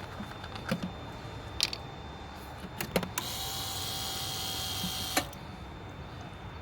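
The electric pump motor of a 1999 Lexus GS 300's brake booster and ABS assembly runs with a steady whine for about two seconds, then cuts off. It is cycling to build brake pressure during the programming and bleeding procedure after the booster replacement. A few sharp clicks come before it.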